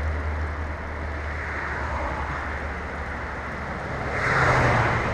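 Steady rush of fast-flowing stream water, with a low engine hum that fades in the first second and a vehicle swelling past about four seconds in.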